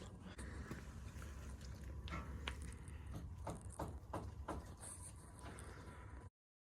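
Faint, irregular metal clicks and taps of hand tools working on the axle nuts, over a low hum, cutting off abruptly near the end.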